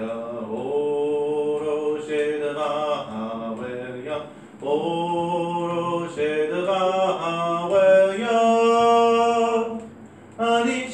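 A man singing unaccompanied in a slow, chant-like style, holding long notes, with short breaks for breath about four seconds in and near the end.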